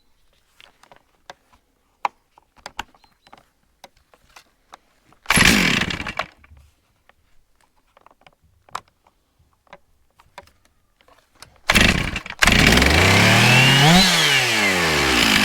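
Old high-powered Stihl chainsaw being pull-started: after a few light clicks it fires briefly and dies about five seconds in, then about twelve seconds in it catches and keeps running. Near the end it is revved up once and settles back to idle.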